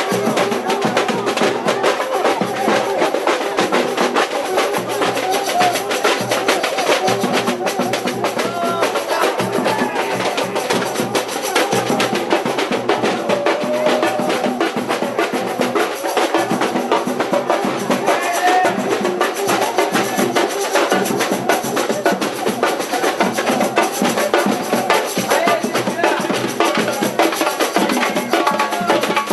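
Supporters' samba drum section (bateria) playing a steady, dense percussion groove, with the squeaking glides of a cuíca and voices over the drums.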